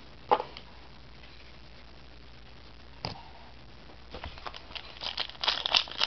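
Foil trading-card pack wrapper crinkling as it is picked up and handled, an irregular crackle that starts about four seconds in and grows louder, after two soft clicks earlier.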